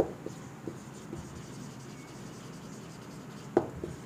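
Marker pen writing on a whiteboard: faint strokes with a few light taps of the tip, the sharpest about three and a half seconds in.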